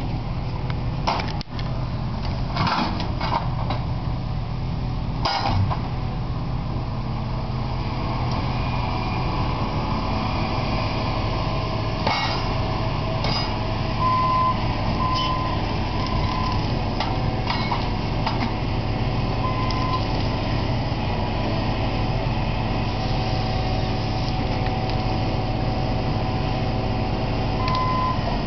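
John Deere 2454D forestry carrier with a Waratah 623C processing head, its diesel engine running steadily under work, with sharp cracks and knocks now and then as the head handles and delimbs ponderosa pine. Its travel alarm beeps in short runs about halfway through and again near the end.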